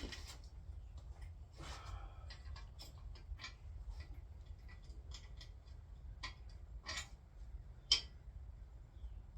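Scattered light metal clicks and knocks as the locking pin of an engine stand is worked out so the block can be rotated, with one sharper click about eight seconds in.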